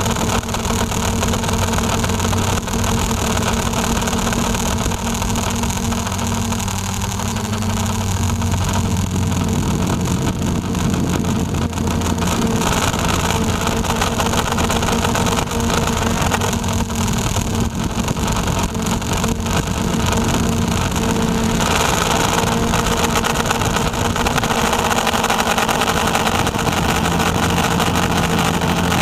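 RC Logger NovaX 350 quadcopter's electric motors and propellers whirring steadily in flight, picked up by a camera mounted on the drone itself. The pitch shifts slightly a couple of times as the throttle changes.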